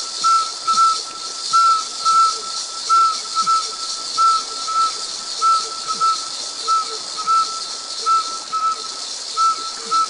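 Nature ambience: a steady high hiss with a short whistled call repeated about twice a second, often in quick pairs.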